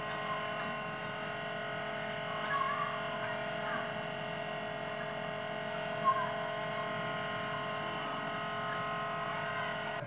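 Steady electrical hum made of several fixed tones, with faint handling sounds and one sharp click about six seconds in.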